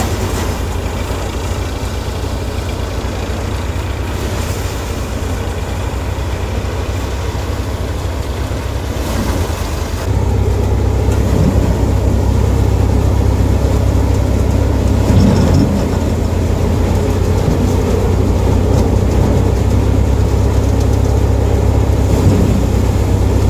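Tractor-powered paddy thresher running steadily under load as paddy is fed in: a continuous low engine drone with the threshing drum. It gets louder about ten seconds in.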